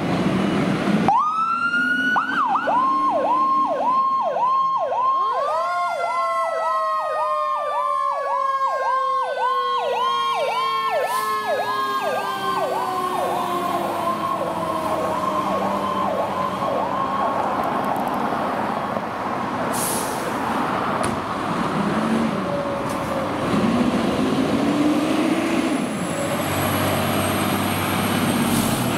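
Fire truck sirens on a responding apparatus. An electronic siren yelps rapidly, about three rises and falls a second, over a mechanical siren that winds up and then slowly winds down. The yelp fades into engine and road noise.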